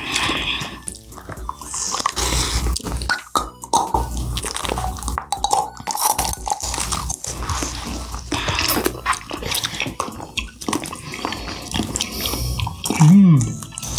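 Wet biting, sucking and chewing of soft pouch jelly, with many small smacks and clicks, over background music. Near the end a short sound rises and falls in pitch, the loudest moment.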